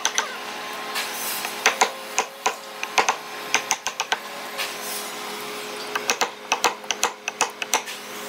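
A wooden mallet striking a chisel handle, chopping into hardwood: quick runs of sharp knocks, several a second, with a short break about five seconds in.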